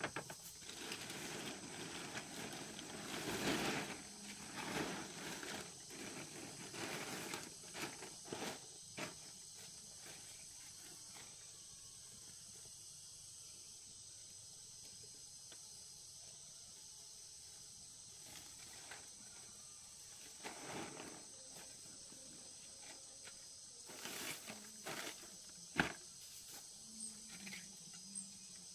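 Insects chirring steadily at a high pitch, with irregular rustling and sharp snaps and knocks over the first ten seconds and again around twenty to twenty-six seconds in.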